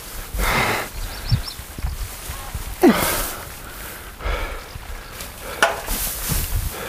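Irregular bursts of rustling and scraping as hay bales are handled and stacked.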